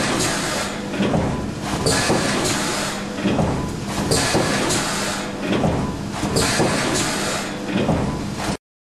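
Arburg Allrounder 470 A all-electric injection moulding machine running, with repeated mechanical strokes and hisses about once a second over a steady hum. The sound cuts off abruptly near the end.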